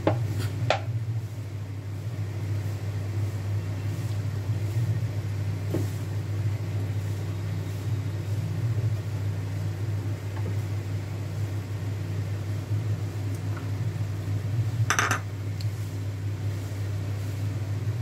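Steady low hum in the kitchen while oil heats in a steel kadai on a lit gas stove, with one sharp metallic clink of a utensil against the pan about fifteen seconds in.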